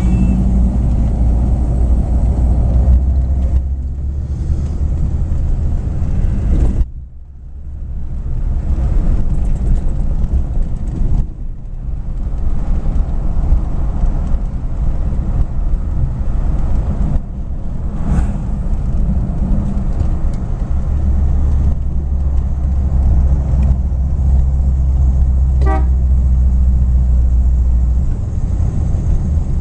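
A 1953 Cadillac Series 62's 331 cubic-inch V8 and dual-range Hydra-Matic drivetrain running on the road, heard from inside the cabin as a steady low drone with road noise. The sound drops away sharply for about a second some seven seconds in, and dips briefly again about four seconds later.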